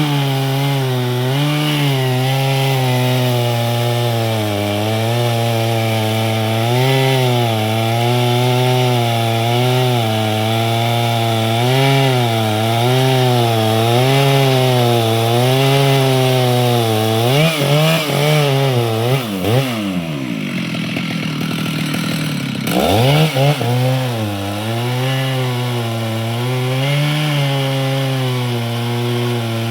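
Two-stroke chainsaw running at high revs while cutting into wood, its pitch wavering up and down about once a second. Roughly two-thirds of the way through, the revs sag and fall low for a few seconds, then climb back up and it keeps cutting.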